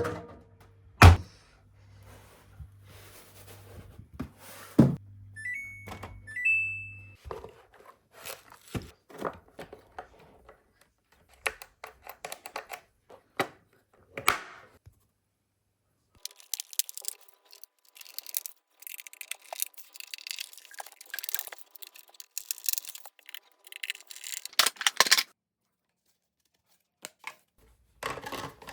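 Vacuum cleaner parts being handled: scattered thunks and clicks, two short high beeps about six seconds in, then about nine seconds of scratchy rubbing or scrubbing in the second half.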